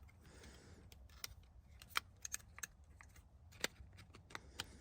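Faint, scattered light clicks and taps of a plastic replacement clock spring and turn signal switch being handled and fitted onto the steering column, with a few sharper clicks about two seconds in and past the middle.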